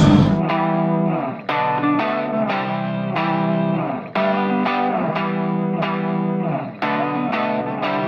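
Background music: an electric guitar with effects, playing a repeating plucked pattern of notes.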